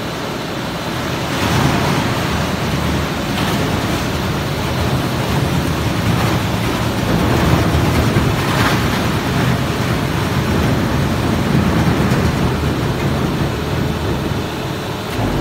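Aceretech PP woven-bag shredder and pelletizing line running: a steady, loud machine noise of motors, conveyor and plastic being shredded. It grows louder about a second and a half in.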